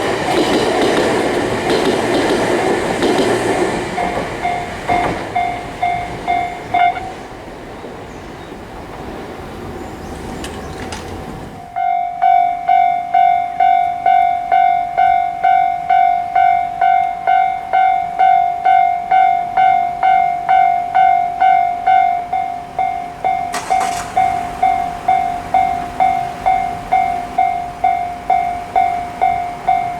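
Electronic level-crossing bell ringing its 'kan-kan' at about two strokes a second while a train rumbles over the crossing. The bell stops about seven seconds in as the train noise fades. About twelve seconds in the bell starts ringing again, loud and clear, and keeps going.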